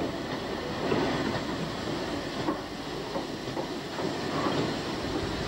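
Steam train on the move, with a Great Western 4200-class 2-8-0 tank engine banking at the rear. It makes a steady rushing, hissing noise with irregular knocks and clatter through it.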